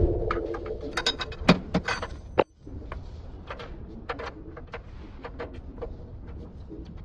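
Irregular light clicks and taps of hands handling metal parts under the engine during an upstream oxygen sensor change, sharpest in the first two and a half seconds and then fainter and sparser. The sound drops out briefly about two and a half seconds in.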